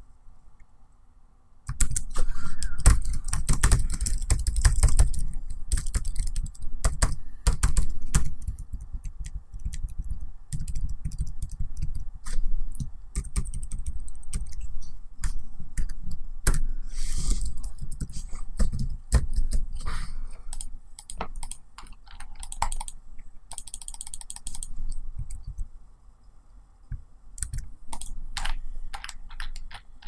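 Laptop keyboard typing: quick, irregular runs of key clicks that start about two seconds in, with a brief pause near the end.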